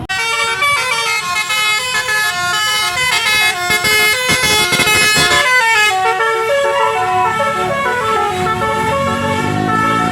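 Bus telolet horn (Basuri multi-trumpet air horn) playing a fast melody of stepped notes that change pitch several times a second. A low tone rises underneath near the end.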